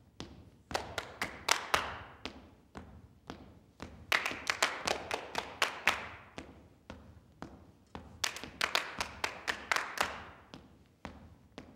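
Dancers beating out a rhythm with their feet on a stage floor and with hand claps, without music. Single taps come about twice a second, broken by three runs of fast, loud taps and claps about a second, four seconds and eight seconds in.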